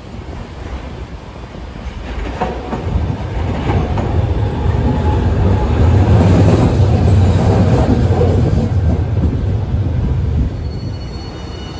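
Hiroshima Electric Railway streetcar passing close by: a low rumble of motors and wheels on the street rails that swells to its loudest as the car goes past mid-way, then falls away, with a couple of sharp wheel knocks as it approaches. A faint high-pitched squeal sets in near the end.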